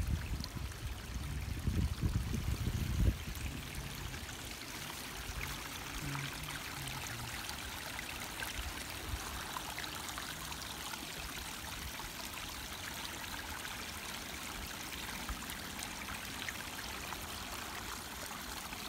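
Steady rush of running water, as from a small stream. Low rumbling thumps sound during the first three seconds.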